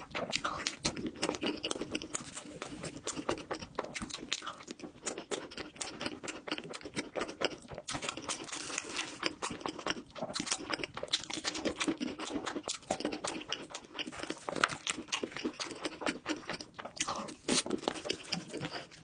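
Close-miked chewing and crunching of food, a dense run of small crisp crackles and mouth sounds with no pauses.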